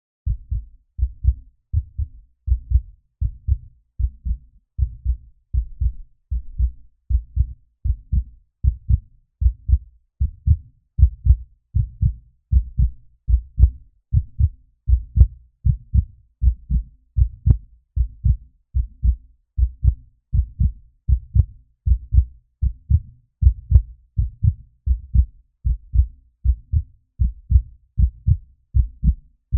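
Human heartbeat: steady low double thumps, lub-dub, at a little under one beat a second.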